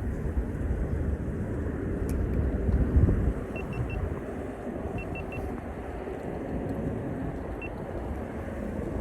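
Wind rumbling on the microphone outdoors, swelling about three seconds in, with a few faint short high peeps.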